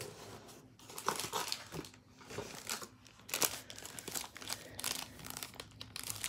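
Paper packaging crinkling and rustling in irregular bursts as gift items are handled and unwrapped from a mail box.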